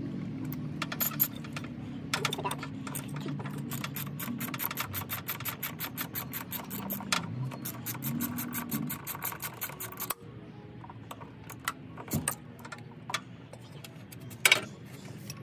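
Socket ratchet wrench clicking in quick runs of strokes as a bolt is turned, stopping about ten seconds in; after that a few separate metal clicks, one sharper than the rest near the end.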